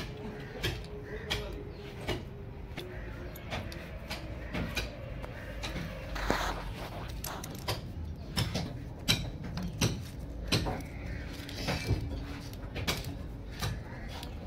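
Scattered sharp clicks and light knocks as hands handle a brass foot valve fitted to the end of a CPVC suction pipe.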